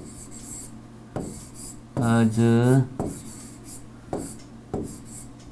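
Handwriting strokes on a tablet touchscreen: a series of short, high-pitched scratchy rubs with a few light taps. A man's voice sounds briefly about two seconds in.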